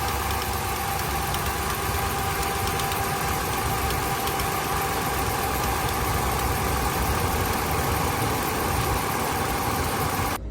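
Dodge Ram's 5.7 L Hemi V8 idling steadily with a fast, regular ticking, the sign of an exhaust leak at the manifold where bolts are broken and missing. The sound cuts off suddenly near the end.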